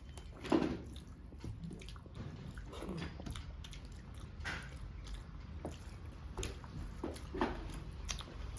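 A person eating rice and curry: chewing with soft wet mouth smacks, about one every second or so.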